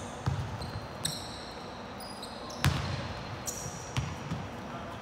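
Basketball bouncing on a hardwood court: a handful of separate thuds, the loudest nearly three seconds in, with short high sneaker squeaks between them.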